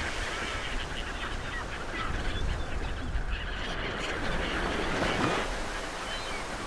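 Surf and wind rushing steadily at the shore, with short bird calls sounding repeatedly over it.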